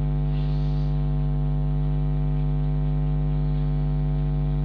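Steady buzzy electrical mains hum, a low drone with a ladder of overtones.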